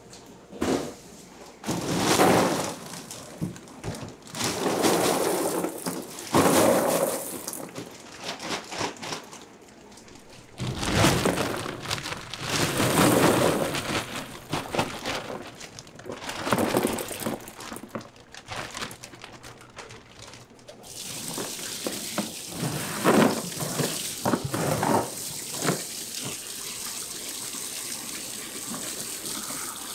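Batches of firm vegetarian drumstick pieces pouring and tumbling into a plastic bin in repeated bursts. After about twenty seconds, water starts running steadily from a tap into the bin, with a few more bursts of the pieces being stirred.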